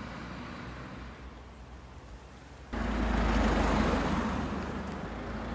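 Faint outdoor background hum, then about three seconds in a louder, steady street traffic noise with a low rumble cuts in abruptly.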